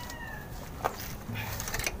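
Two sharp metallic clicks about a second apart, from a hand tool working at a tight oil filter under a truck. A faint, slightly falling tonal call fades out in the first half second.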